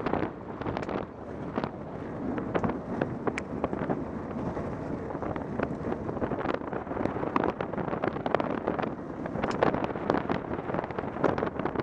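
Velomobile rolling along a country lane: steady wind buffeting on the microphone and rolling noise, broken by many irregular clicks and rattles.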